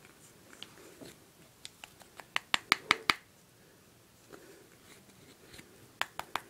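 Sharp clicks and taps of a hand tool scraping inside the cardboard tube of a Piccolo Pete firework to dig out its powder. There is a quick run of about six clicks around two seconds in, and a few more near the end.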